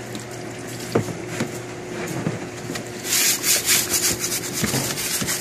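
Hand scrubber rubbing quickly back and forth over a car battery's plastic case, wet with degreaser solution, starting about three seconds in. Before that, a few light knocks over a low steady hum.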